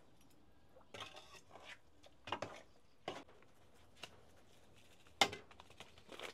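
Metal ladle stirring thick leafy curry in an aluminium pot: a few separate scrapes and clinks against the pot, the sharpest about five seconds in.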